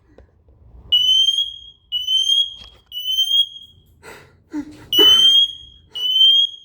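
Smoke detector sounding its alarm: a string of shrill, high beeps of the same pitch, each rising slightly and lasting most of a second, about one a second. A brief noise breaks in about four seconds in.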